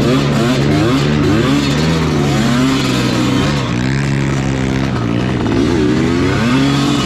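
Small trail motorcycle engines running, one revving up and down repeatedly over a steady lower engine drone.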